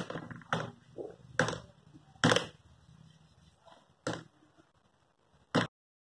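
Tip of a broom handle knocking against a TV remote control on a wooden cabinet top: about six sharp taps at uneven intervals, the loudest a little over two seconds in.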